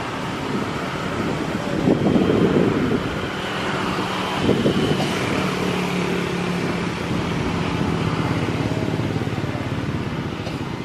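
Steady outdoor engine noise, with two louder low swells about two and four and a half seconds in.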